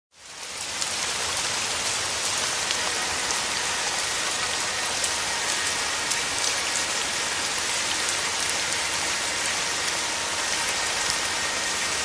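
Steady heavy rain falling, a dense hiss with many fine drop patters, fading in over the first second.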